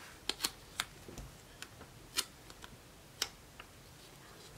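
Scattered light clicks and taps, irregularly spaced, as fingers handle a small paper sticker and press it onto a planner page.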